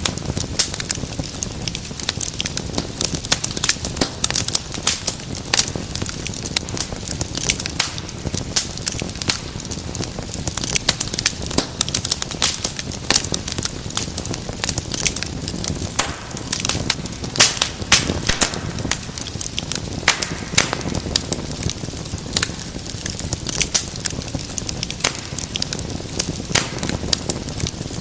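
Fireplace fire crackling: a dense, irregular run of sharp pops and snaps over a steady low rush of flame.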